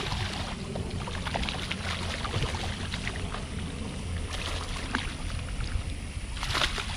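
Water splashing as a hooked largemouth bass thrashes at the surface in shallow water next to the bank, with a louder splash near the end, over a steady low rumble.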